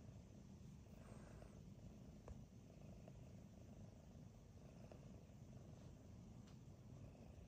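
Domestic cat purring softly while being stroked, a low rumble that swells and fades with each breath.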